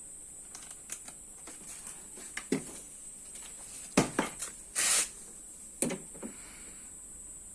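Scattered clicks and knocks of hands handling equipment, with a short hiss about five seconds in.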